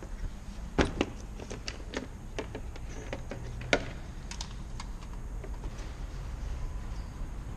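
Irregular sharp clicks and light taps, the loudest about a second in and again near four seconds, over a low steady hum.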